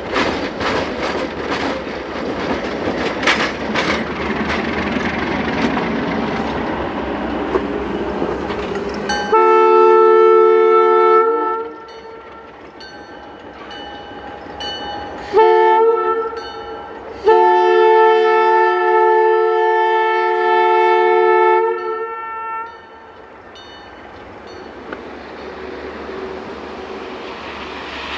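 A freight train rolling past with wheel clicks and rumble. Then a diesel locomotive's multi-tone air horn sounds a long blast, a shorter blast and another long blast, each held on a steady chord.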